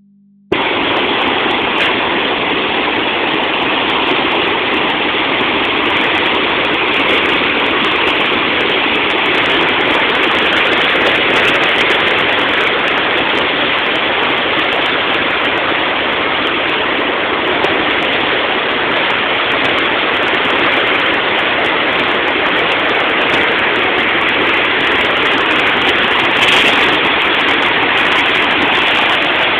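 Muddy floodwater rushing and churning through a river channel in standing waves: a loud, steady roar of water.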